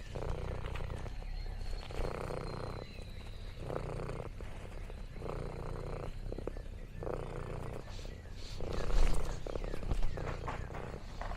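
Orange tabby cat purring close to the microphone, the purr swelling and fading about every second and a half with its breathing. A louder burst of noise about nine seconds in.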